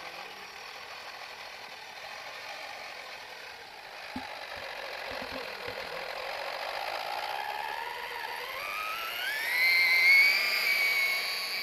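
Electric drive motor and gearbox of a six-wheeled RC scale model truck whining, the pitch rising steadily and growing louder as the truck speeds up toward the end. A single click about four seconds in.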